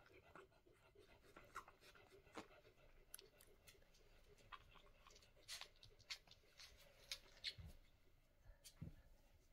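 Near silence: faint scattered clicks and rustles, with two soft low thumps near the end.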